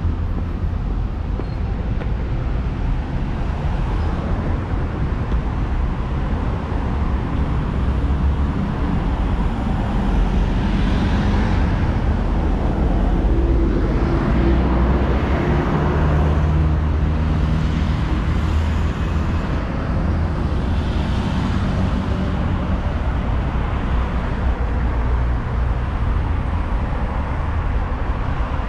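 Busy avenue traffic: a steady rumble of cars and other motor vehicles driving past, with several louder close passes through the middle.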